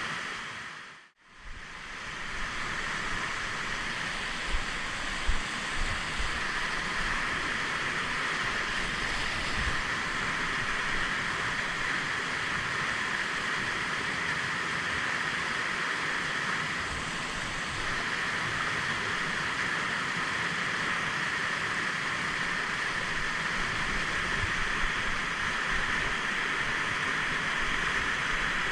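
Fast mountain river running, a steady rush of water. It cuts out briefly about a second in, then carries on evenly, with a few faint low knocks.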